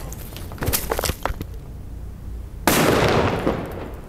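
HPA-powered TAGinn ML36 airsoft launcher firing: a few sharp clicks about a second in, then a loud pop with a rush of air near the end that fades over about a second.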